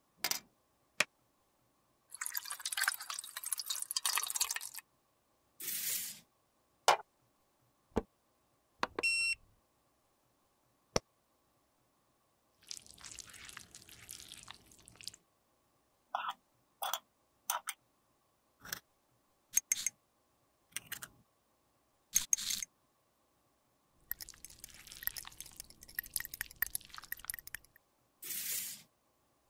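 Clear liquid poured from one glass beaker into another, trickling for a couple of seconds about halfway through. Around it come scattered sharp clicks and taps and two longer stretches of rustling handling noise.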